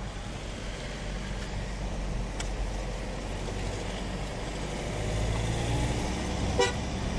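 Car engine and road noise heard from inside the moving car, growing louder about five seconds in as the car speeds up.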